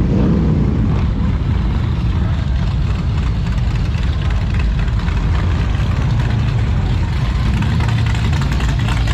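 Motorcycle engines running and idling on a busy street, a steady low engine sound, with one engine briefly revving right at the start.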